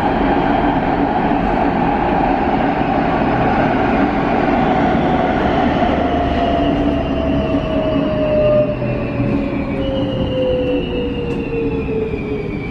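Škoda Varsovia metro train heard from inside the car while running, a steady rumble of wheels and body with an electric traction-motor whine falling steadily in pitch as the train slows. About ten seconds in, a second, higher whine joins and also falls.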